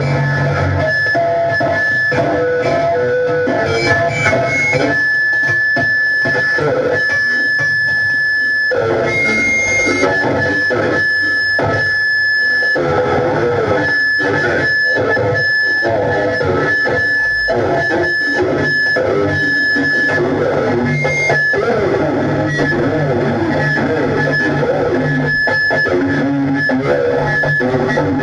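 Experimental noise music: guitar and effects over a steady low drone, with a high held tone that repeatedly cuts out and comes back.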